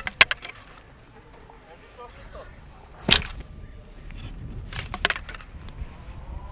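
Recurve bow being shot: the bowstring is released with one sharp snap about three seconds in. Quick clicks and rattles of arrows tapping the bow as they are nocked come at the start and again around five seconds in.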